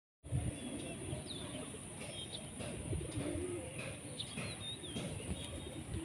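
A flock of pigeons cooing with low, wavering calls, with wings flapping as some take off, and short higher chirps of other small birds mixed in. A steady high-pitched whine runs underneath.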